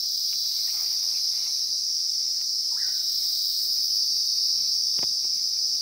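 A steady, high-pitched insect chorus. A single sharp click sounds about five seconds in.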